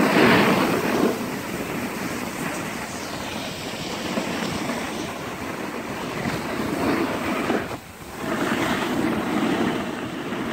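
Wind rushing over the microphone and a snowboard sliding and scraping over packed snow as the rider glides downhill. The noise surges near the start, drops out briefly about eight seconds in, then rises again.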